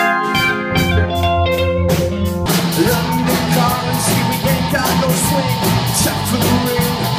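Live rock band music: held electric organ chords over a steady drum beat, then about two and a half seconds in an abrupt cut to another band playing electric guitars, bass and drums.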